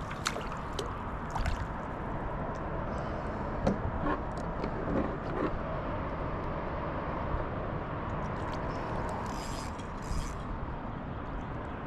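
Steady rushing noise with scattered light clicks and knocks as a freshly caught perch is handled and unhooked aboard a kayak.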